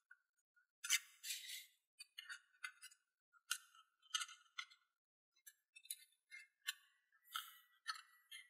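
Origami paper crackling and rustling as it is pinched and creased between the fingers, in short irregular bursts, the loudest about a second in.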